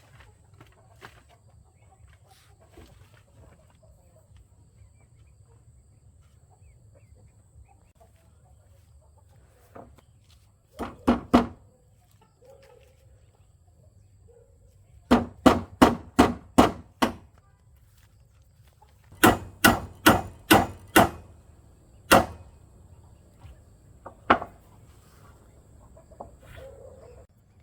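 Runs of sharp blows on wood, about two or three a second: three, then six, then five, then two single strikes. Chickens cluck faintly between them.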